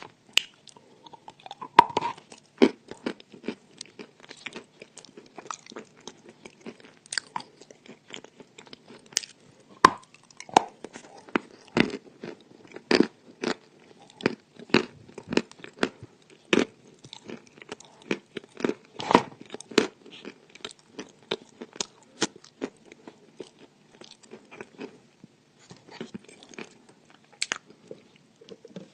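Person biting and chewing crunchy chalk: a string of sharp, irregular crunches with a few louder bites among them.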